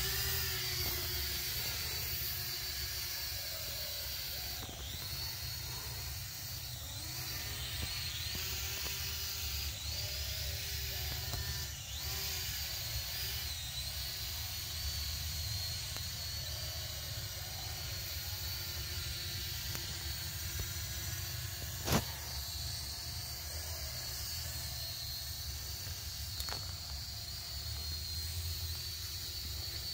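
Small toy quadcopter drone's motors and propellers whining steadily in flight, the high whine dipping in pitch now and then as it is steered, over a low rumble. One sharp click about two-thirds of the way through.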